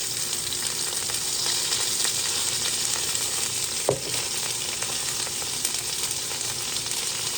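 Mushrooms and cherry tomatoes frying steadily in sesame oil in a frying pan, a continuous sizzle, with a single sharp click about four seconds in.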